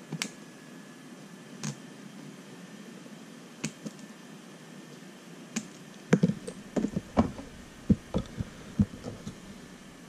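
Small clicks and taps as pliers and little plastic and metal parts of an RC crawler shock are handled on a workbench: a few single clicks spaced out at first, then a busier run of knocks and taps about six seconds in.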